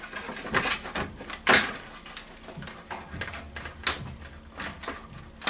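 Wire cutters snipping through the internal wiring of a desktop PC case: a string of sharp, irregular snips and clicks, the loudest about a second and a half in.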